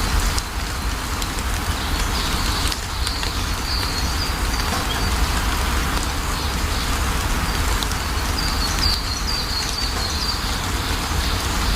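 Steady rain falling, with a low rumble underneath. A bird chirps in short high notes a few times, most clearly about nine seconds in.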